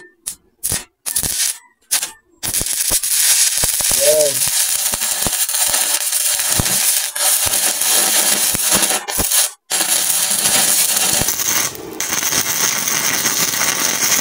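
Stick (SMAW) welding arc from a 1/8-inch E6011 electrode set at about 80 amps, struck at a tie-in on a vertical root pass. A few short stuttering strikes come first. Then a steady, loud crackling arc runs on, breaking off for an instant about two thirds of the way through and catching again.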